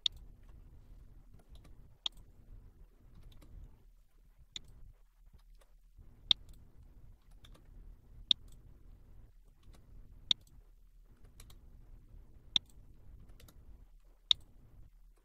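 Computer mouse button clicking, a sharp click about every two seconds with fainter clicks between, as points are picked in a drawing program. Faint low background noise underneath.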